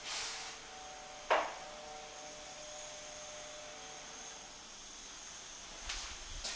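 Quiet room tone with camera handling noise: a soft swish at the start, one sharp click about a second in, a faint steady hum that fades out partway through, and low thumps and clicks near the end.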